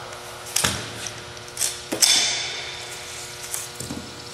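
High-powered rifle at a live-fire test: a few sharp cracks, the loudest about two seconds in, with a short echoing tail.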